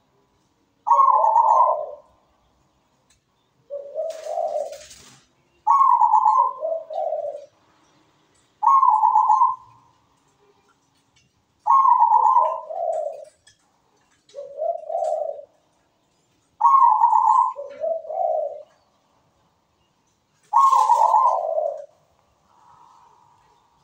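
Zebra dove (perkutut) cooing its song: about eight phrases, one every two to three seconds, most starting on a higher note and dropping to a lower, rolling coo.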